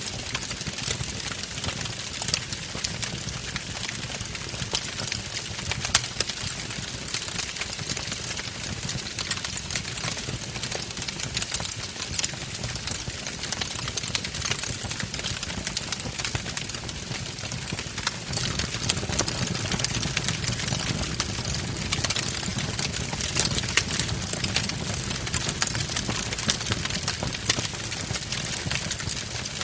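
Wood fire burning in a fireplace, crackling with many sharp pops over a steady low rumble.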